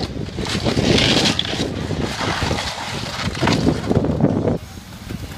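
Demolition of a school building: heavy machinery and breaking debris rumbling and crunching, with wind buffeting the microphone. The noise drops off sharply about four and a half seconds in.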